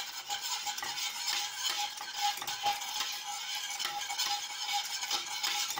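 A utensil stirring a thin cocoa, sugar and cornstarch mixture quickly round a stainless steel pot: steady liquid swishing with many small repeated scrapes and clinks against the metal.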